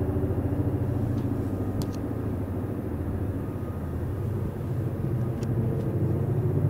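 Low-flying military helicopter overhead: a loud, steady, deep rotor beat.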